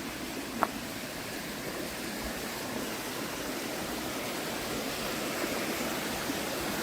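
Rushing water of a shallow woodland stream and its cascades, a steady hiss that grows gradually louder, with one short click a little way in.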